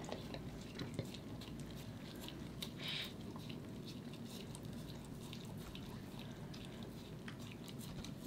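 A corgi licking and gnawing a raw, frozen lamb femur bone: faint, irregular small clicks of tongue and teeth on the bone.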